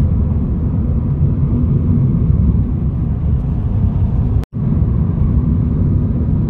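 Steady low rumble of a car driving. The sound drops out for an instant about four and a half seconds in and then resumes unchanged.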